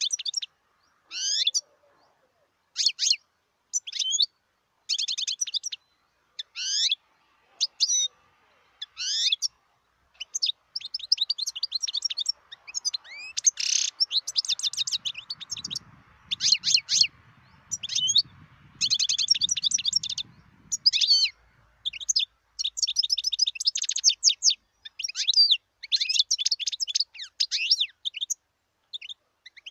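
European goldfinch singing. Short twittering phrases come about once a second at first, then from about a third of the way in a long run of fast, high twittering notes with hardly a pause.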